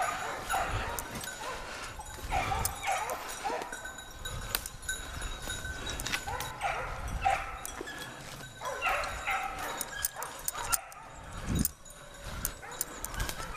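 Basset griffon vendéen hounds baying in repeated runs of calls, with sharp cracks of twigs and brush underfoot.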